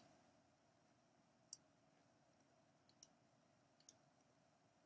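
Faint computer mouse clicks over near-silent room tone: one click about a second and a half in, then two quick pairs of clicks near three and four seconds in.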